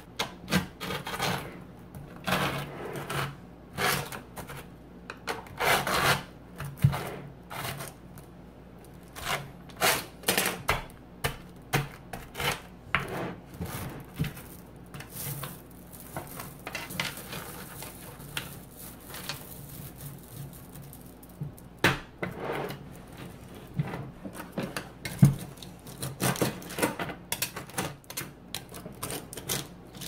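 Thousands of small neodymium magnet balls clicking and rattling against each other as chains of them are pulled apart and bunched in the hands on a wooden table. It comes in irregular bursts of clatter, thinning out in the middle and picking up again near the end.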